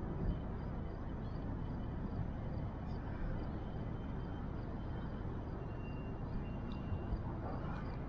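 Steady outdoor background noise, a dense low rumble like wind or distant traffic, with faint short high chirps repeating about twice a second.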